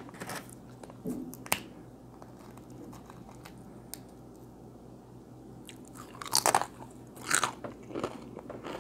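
A person chewing a mouthful of food close to a clip-on microphone: a few soft mouth clicks at first, a quiet stretch, then a run of crunchy bites from about six seconds in.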